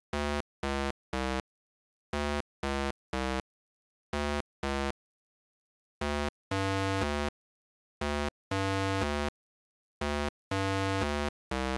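A simple synthesized electronic tune of short notes in small groups, with a few held longer near the end. Each note starts and stops sharply, with silent gaps between the groups.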